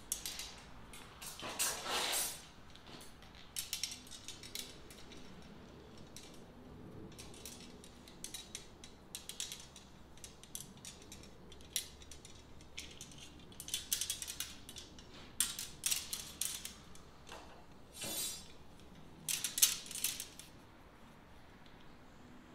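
Small metal rods being screwed by hand into the threaded holes of a tent frame: irregular metallic clicks, scrapes and rattles, in uneven clusters.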